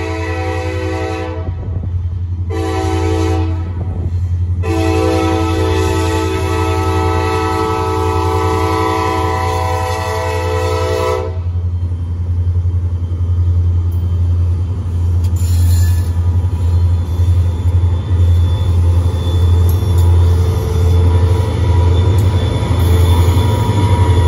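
Kansas City Southern freight train's diesel locomotive horn sounding for a grade crossing, several tones at once: a blast ending about a second in, a short blast, then a long blast held until about eleven seconds in. The lead diesel locomotives then pass close by, their engines running loud and steady.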